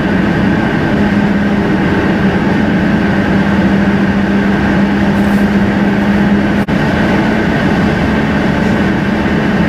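Steady in-car road and engine noise of a car cruising on a highway, with a constant low hum. It cuts out for an instant about two-thirds of the way through.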